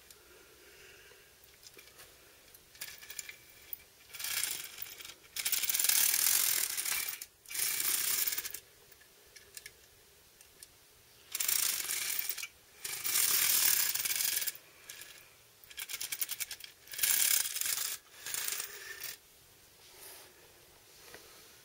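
Die-cast John Deere 450D LC toy excavator worked by hand, its tracks and moving parts rattling and clicking in repeated bursts of a second or two.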